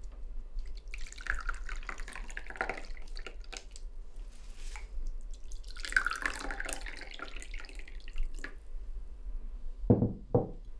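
Tea poured from a ceramic teapot into mugs, twice: a pour starting about a second in and another about six seconds in. Near the end, two low knocks as the teapot is set down on the wooden table.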